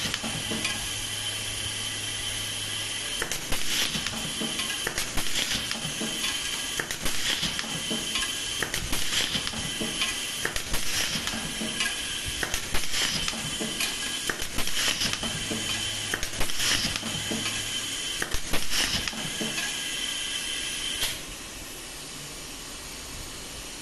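Pneumatic auto-feed blind rivet gun setting rivets into a perforated metal sheet, one sharp air-driven snap about every second or two over a steady compressed-air hiss. A low hum comes and goes, and the hiss and snaps stop about three seconds before the end.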